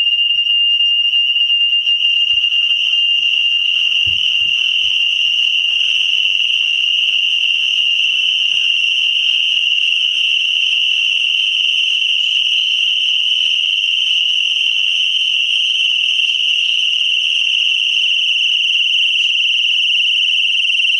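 GE Simon XT home alarm system's siren sounding a loud, steady, high-pitched tone without a break: the alarm has been tripped by a motion sensor while the system is armed.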